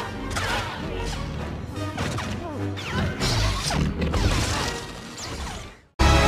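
Movie soundtrack of a lightsaber fight: lightsaber swings and clashes with weapon impacts over music. Near the end it fades out to silence, then loud music starts abruptly.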